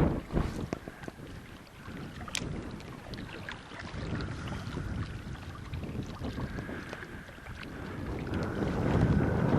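Strong wind gusting and buffeting the microphone, loudest at the start and again near the end, with scattered light clicks in the lull between.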